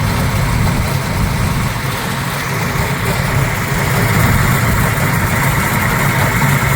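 V8 engine of a 1972 Chevrolet El Camino SS idling steadily.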